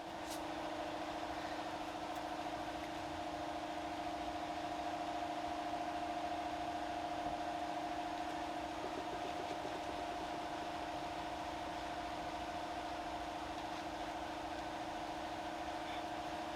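Power tool spinning an eraser wheel against car paint to strip leftover emblem adhesive: a steady motor hum that holds one pitch, wavering briefly about halfway through.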